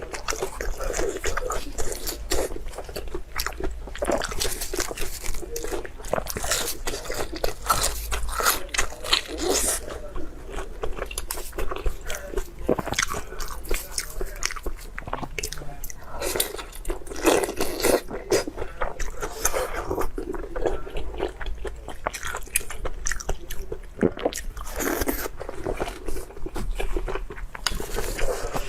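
A person chewing and biting food, a dense, uneven run of short clicking mouth sounds.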